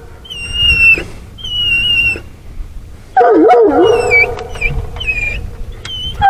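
A coonhound whining twice in high thin tones, then breaking into a loud, wavering howl about three seconds in.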